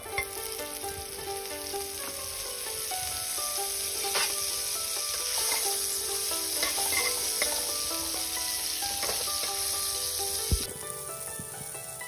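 Butter sizzling and frying in a hot nonstick wok, with a few clicks as metal tongs push it around. The sizzle cuts off abruptly near the end, just after a single low thump.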